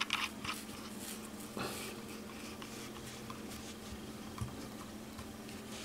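Faint handling of a metal tank atomizer, the Wotofo Serpent Mini, as it is twisted down onto a box mod's connector: a few light clicks and scrapes over a steady low hum.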